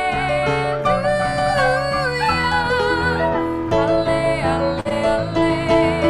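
Music: a melody with vibrato over plucked acoustic guitar accompaniment.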